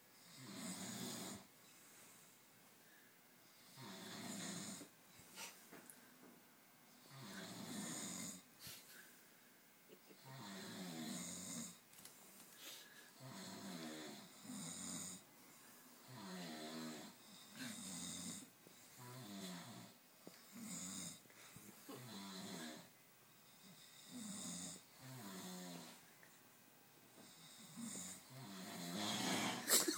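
Two men snoring in turn, one snore after another every one to three seconds, the snores of the two overlapping and alternating. The snores come faster from the middle on and are loudest near the end.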